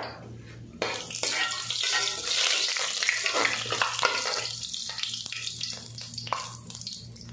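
Whole spices (cumin, fennel, star anise, cinnamon, bay leaf, cloves) sizzling and crackling in hot oil in an aluminium karahi, stirred with a metal spoon. The sizzle rises sharply about a second in and is loudest around the middle.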